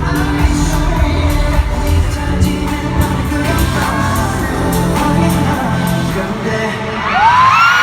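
Live K-pop song with singing over a heavy bass beat, heard through arena speakers. About seven seconds in the beat drops away and loud rising screams from the crowd take over.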